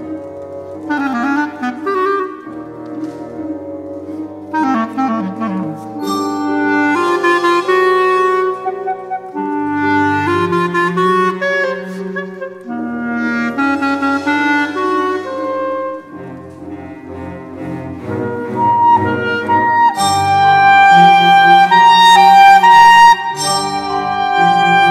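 Solo clarinet playing short phrases with quick downward slides, over sustained low notes from the orchestra's strings. The orchestra swells louder and fuller about twenty seconds in.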